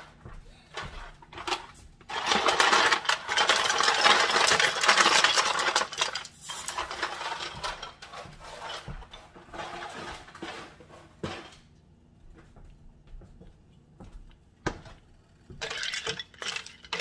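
Ice cubes tipped from a freezer ice bin into a large stainless steel pot of drained pasta, clattering loudly for about four seconds, to shock the pasta and stop it cooking. Scattered clinks of ice against the pot follow, and near the end a spoon stirs through the ice.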